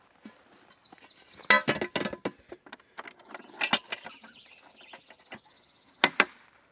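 Camping gear being handled and packed onto a motorcycle's rear seat and rack: rattling, knocking and scraping, loudest in a cluster a second and a half in, with two sharp clicks near the end.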